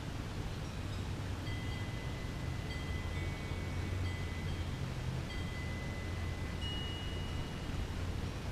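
Light chiming: several clear, sustained ringing tones at different pitches overlap, starting about a second and a half in, over a steady low hum and hiss of outdoor background noise.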